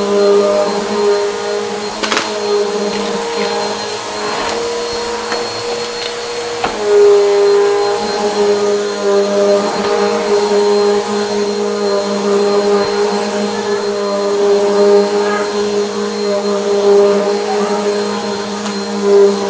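Eureka Maxima bagless upright vacuum running steadily over a rug; its brush roll is broken. The motor hum drops slightly in pitch about seven seconds in, and occasional crackles come through as debris is picked up.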